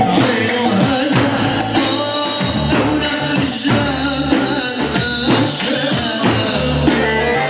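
Loud folk-style dance music with a steady drum beat and a sustained melody line.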